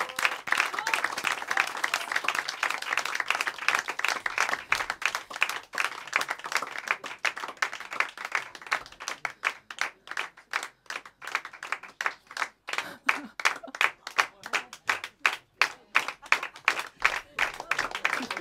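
Theatre audience applauding: dense applause that thins out about halfway through into sparser, more evenly spaced claps.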